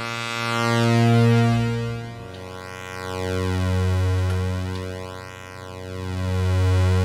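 Kurzweil PC3 synthesizer sounding a held, harmonic-rich pulse-width-modulated tone. Its timbre and loudness sweep in a slow cycle of about two and a half seconds as the pulse width is modulated. The note steps down in pitch about two seconds in.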